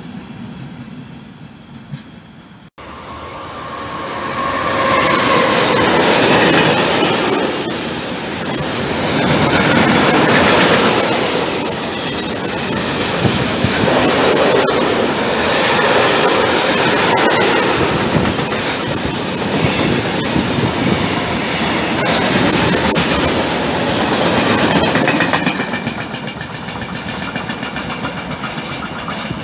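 Long freight train of hopper wagons passing close at speed: the wheels rumble and clatter on the rails, swelling in loudness in waves as the wagons go by, then fading as the train draws away near the end.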